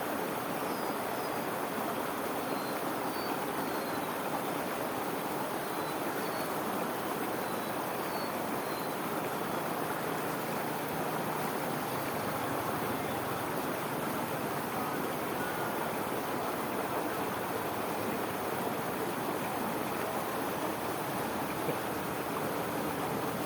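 Steady rushing of water pouring over a small irrigation-channel waterfall into a whirlpool. A few short, high, falling chirps sound over it in the first half.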